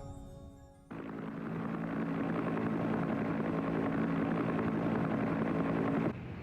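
Music fading out, then a steady engine drone with a constant hum that cuts in suddenly about a second in and cuts off sharply near the end.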